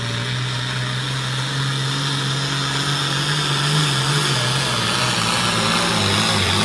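International Harvester pulling tractor's diesel engine running hard under load as it drags a weight-transfer sled. The engine note holds mostly steady, rising slightly partway through and wavering near the end, and the sound grows a little louder as the run goes on.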